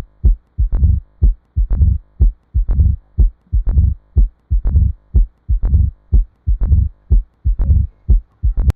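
Recorded heart sounds of mitral stenosis: a loud first heart sound (S1) followed by the second (S2), the cycle repeating about once a second, with a swishing diastolic murmur just before each S1.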